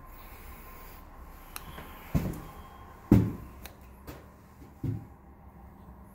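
Three dull thumps, the loudest about three seconds in, with a few light clicks between them, as someone moves around a room.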